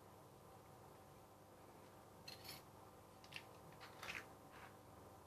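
Quiet room tone, then from about two seconds in a handful of short, sharp clicks and snips, as of something small being handled or cut.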